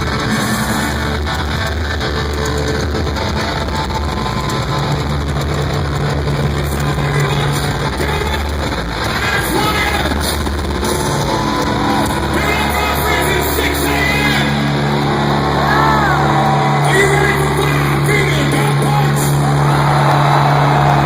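Loud music with singing filling a large concert hall, recorded from among the audience.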